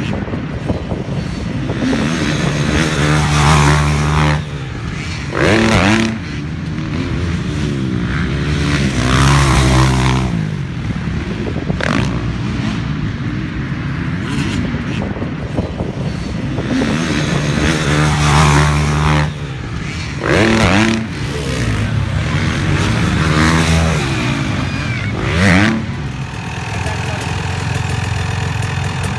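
Dirt bike engines revving out and dropping back through the gears on a motocross track, with several loud passes as bikes go by. Near the end this gives way to a steady dirt bike idle.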